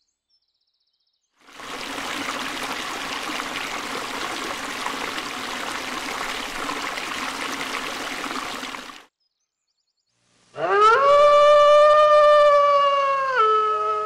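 A steady rushing noise lasting several seconds, then, after a short silence, one long animal howl that rises, holds its pitch, and steps down to a lower note near the end.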